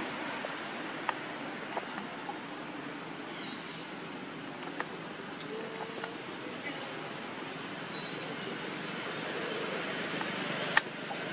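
A steady, high-pitched insect drone over a background hiss of outdoor noise, with a few faint clicks and one sharp click near the end.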